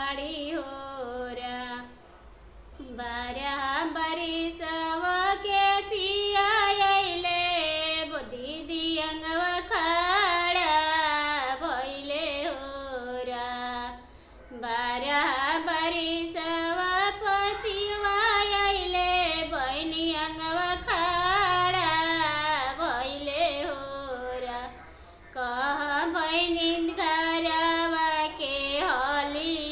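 A woman singing a Bhojpuri devotional song to Shiva (a bhajan) solo, in long drawn-out melodic phrases on held vowels, breaking off briefly for breath about 2, 14 and 25 seconds in.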